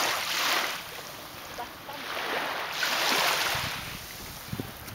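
Small sea waves washing in at the shoreline: a hiss that swells and fades twice.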